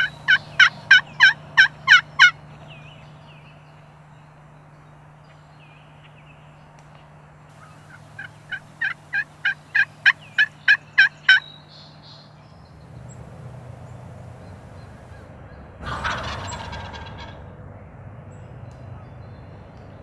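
Turkey yelping: a run of loud, evenly spaced yelps, about four a second, for the first two seconds, then a second run that builds louder from about eight to eleven seconds in. A short rough burst of noise comes about sixteen seconds in.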